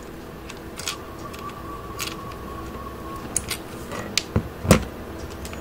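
Light plastic clicks and taps from handling the opened radio transmitter's battery holder and pressing a wire connector into place, with a louder knock about three-quarters through.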